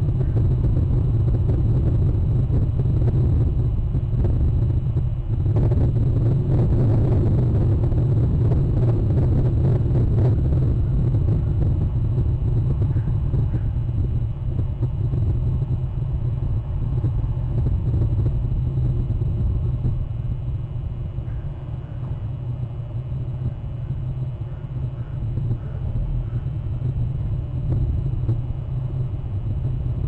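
A steady low rumble that swells and fills out for several seconds, starting about five seconds in.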